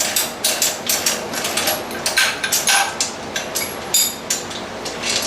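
Socket ratchet wrench clicking in quick, irregular strokes, a few a second, as a nut is run onto a bolt of the steel home-gym frame.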